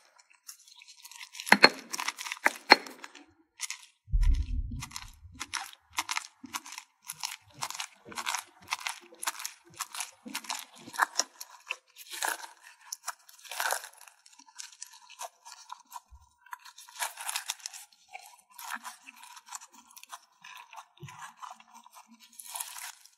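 Foam-bead slime crackling and crunching as it is ground and pressed in a stone mortar, first with the pestle and then with gloved fingers: irregular quick crackles, several a second, with a dull thump about four seconds in.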